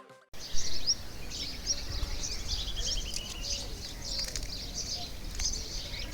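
Outdoor ambience of several small birds chirping and twittering, with one bird giving a quick descending trill in the middle, over a low rumbling noise.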